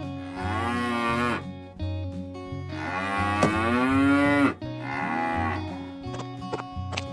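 Cattle mooing: three drawn-out calls, the middle one the longest and loudest at about two seconds.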